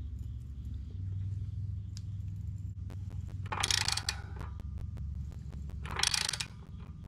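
Socket-wrench ratchet clicking as the crankshaft pulley bolt on a VW Type 1 engine is turned, with two short, loud rapid ratcheting runs about three and a half and six seconds in. A steady low hum runs underneath.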